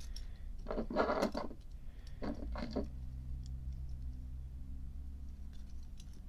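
Small metal parts of a petrol lighter mechanism handled and fitted by hand: two short scraping rustles in the first three seconds, then a few faint clicks over a low steady hum.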